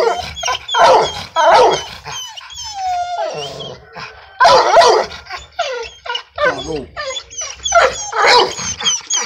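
A dog barking repeatedly and loudly, about two barks a second, with a short pause about three to four seconds in.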